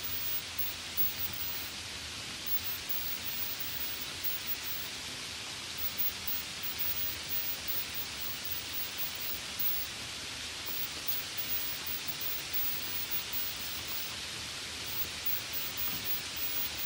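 Light rain falling steadily, an even hiss with no distinct drops or breaks.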